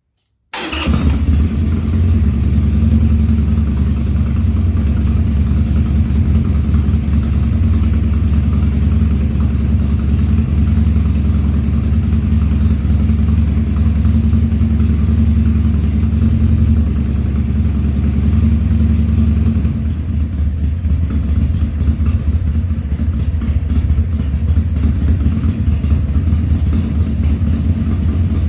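2000 Harley-Davidson Sportster 1200's carbureted V-twin engine running steadily on the choke on its first start after a carburetor rebuild. It comes in suddenly about half a second in and runs a little rougher from about twenty seconds.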